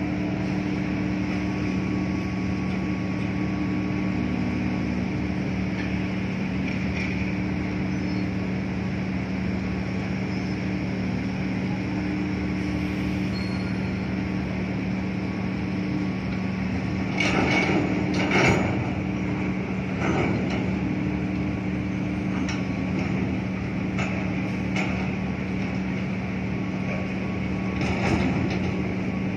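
Steady drone of the OOCL Australia container ship's engines and machinery as it passes close by: a low hum with a couple of constant tones. A few short knocks cut through, a cluster about 17 seconds in and single ones around 20 and 28 seconds in.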